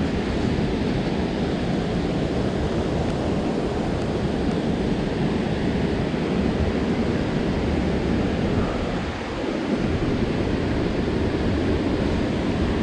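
Steady rushing of a waterfall and river cascade, an even wash of water noise without a break.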